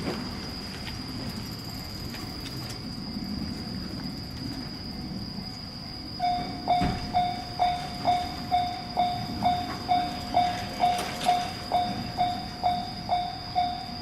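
Low, steady rumble. About six seconds in, a Japanese railway level-crossing warning bell starts, its electronic ding repeating about twice a second as the crossing signals an approaching train.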